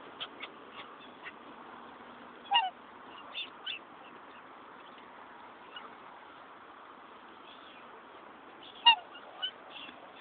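Black swans pecking at a car, a scatter of light sharp beak taps, with two short calls whose pitch drops, about six seconds apart; the second call is the loudest sound.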